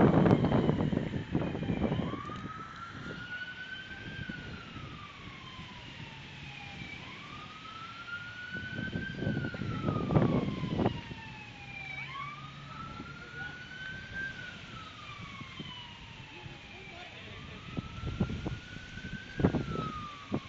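An emergency vehicle siren wailing: each cycle is a quick rise in pitch and then a slow fall, repeating about every five seconds. Wind buffets the microphone at the start, about ten seconds in, and again near the end.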